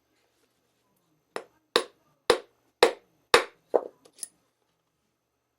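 Lee Loader hand tool struck with a mallet about six times, roughly twice a second, seating a new primer in a 30-40 Krag cartridge case; the last knock is fainter.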